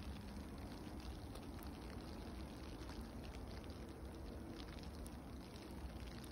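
Freezing rain coming down steadily on ice-crusted snow and branches: a continuous hiss of many tiny ticks.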